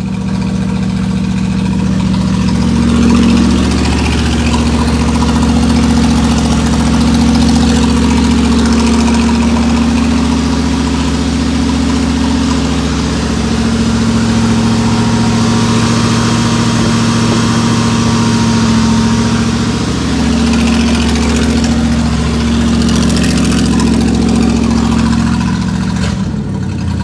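Car engine running at a fast idle soon after starting, its speed stepping up and down several times and changing again near the end. It has not run in a while and has not yet settled to a normal idle.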